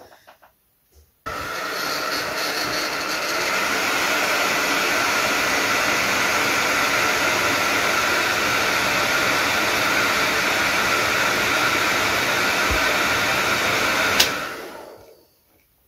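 Small electric motor running steadily, a whirring with a faint whine in it, that spins a model dummy rotary engine. It starts suddenly about a second in, then clicks off near the end and winds down.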